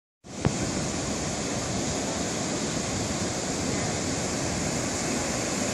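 Ocean surf breaking and washing in at the shoreline, a steady rush of noise, with a single sharp click about half a second in.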